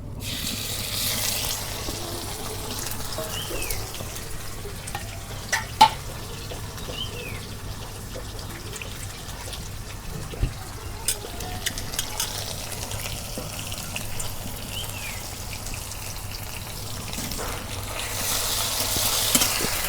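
Chopped onions sizzling in hot mustard oil in a karahi, a steady hiss that is strongest just after they go in and swells again near the end. A few sharp clicks of a utensil against the pan come partway through.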